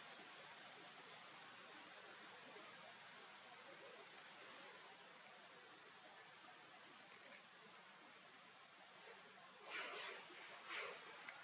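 Outdoor ambience of steady hiss with a small bird's short, high chirps, coming in quick runs a few seconds in and then singly. Two brief louder noises near the end.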